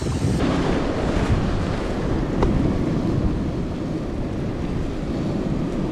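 Wind buffeting the microphone, with waves washing onto a rocky shore.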